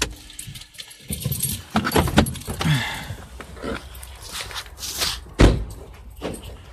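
Handling noise of a person getting out of a car and walking off: scattered clicks and rustling, keys jangling, and one loud thump a little after five seconds in.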